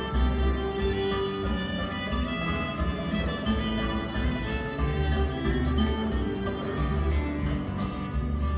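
Live acoustic string band playing an instrumental break: fiddle carrying the melody over strummed guitar and a steady upright bass pulse.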